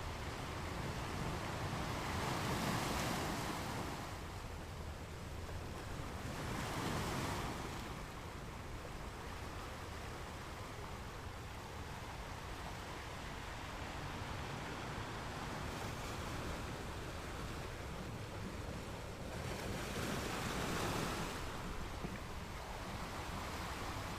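Ocean waves washing onto a shore: a steady hiss of surf with three larger waves swelling and breaking, about two, seven and twenty-one seconds in.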